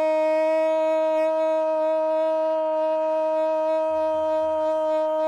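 A commentator's goal cry: one long, unbroken 'gooool' shouted into a microphone and held on a steady high note.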